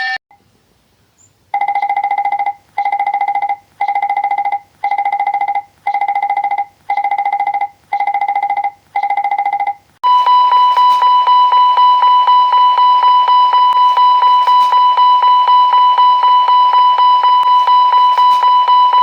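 Two airliner cockpit fire-warning alarms in turn. First a pulsed electronic tone that sounds eight times, about once a second. Then, about ten seconds in, a louder continuous warning takes over: a ringing tone beating rapidly, like a fire bell.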